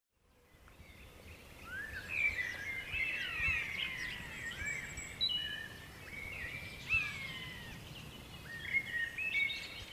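Several songbirds singing at once, short whistled and chirping phrases overlapping, over a low steady background rumble; it fades in from silence at the start.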